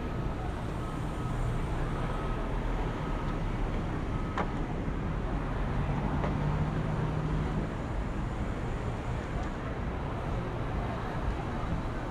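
City street traffic: the steady low rumble of passing vehicles, with a low engine hum swelling and fading about six to seven and a half seconds in, and a single sharp click a little past four seconds.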